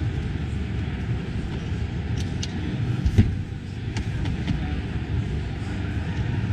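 Pontoon boat lounger seat back being flipped over by hand: a few clicks, with a knock about three seconds in, as the hinged backrest folds and settles. These sit over a steady low rumble of exhibition-hall din.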